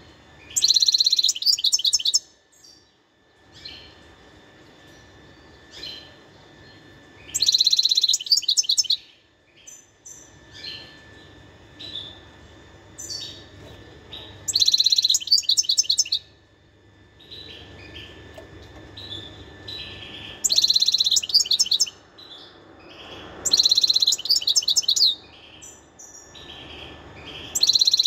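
European goldfinch singing: loud bursts of rapid, high twittering song, each about a second and a half long, coming every few seconds, with softer twitters and calls between them.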